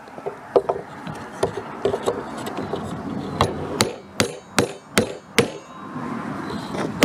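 Claw hammer knocking on a wooden block held against a wooden floorboard, driving the last board of a traditional Korean well-style floor panel tight into place. A series of sharp wooden knocks, lighter at first, then heavier at about two a second in the second half.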